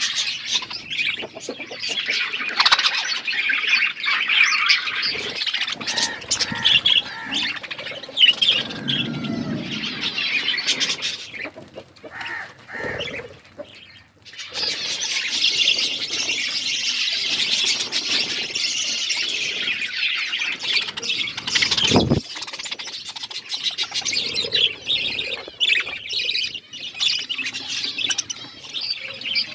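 Budgerigars chattering with dense runs of quick, high chirps and squawks. The chatter thins out briefly around the middle, and there is a single sharp knock about two-thirds of the way through.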